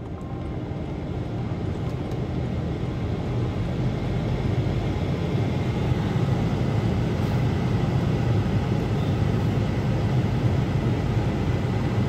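Volkswagen Vento's climate-control blower running at full speed to demist the fogged windscreen: a steady rush of air that builds over the first few seconds, then holds.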